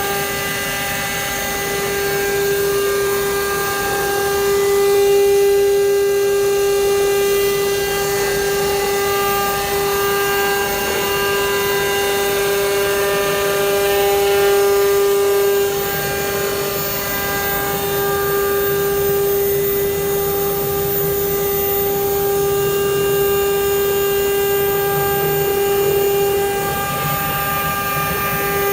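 CNC router spindle running steadily and cutting wood: a steady whine over a hiss of cutting.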